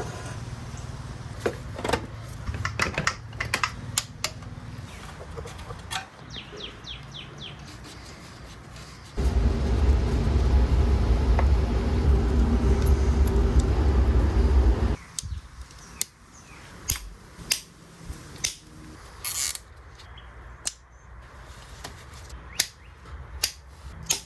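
Workshop handling noises, scattered clicks and knocks of tools and parts. About nine seconds in, a loud steady rushing noise with a low rumble starts, runs for about six seconds and stops abruptly.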